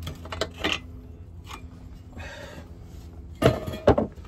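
Metal hand tools clinking against the transmission and car underbody: light clicks at first, then two loud metallic clanks near the end.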